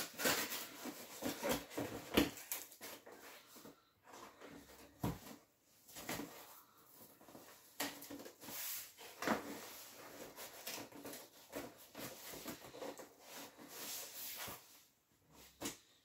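Cardboard box being handled and opened: irregular scraping, rubbing and tearing of cardboard and packaging, with a few sharper knocks and clicks, the loudest a little after two seconds in and again around nine seconds.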